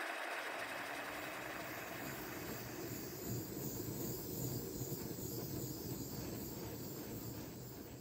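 Handheld gas torch flame blowing steadily on a silver piece as it is torch-fired, a constant rushing hiss with a low rumble that eases off near the end.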